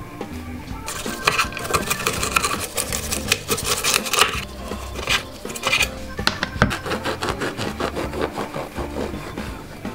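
Knife cutting through the crisp, crackling skin of a roast porchetta on a wooden board: a dense run of rapid crunching strokes from about a second in. Near the middle it gives way to softer, sparser crunches as a knife saws through a ciabatta roll's crust, with faint background music.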